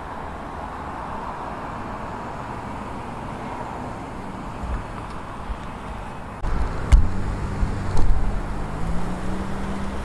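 Steady road traffic noise, which about two-thirds of the way through jumps louder as a motor vehicle engine runs close by, its pitch rising slightly, with two sharp knocks a second apart.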